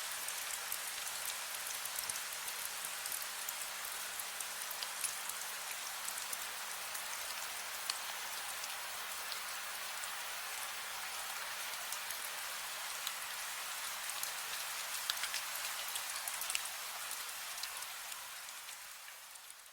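Steady rain, a soft even hiss with many small drops ticking on a surface. It fades out over the last two seconds.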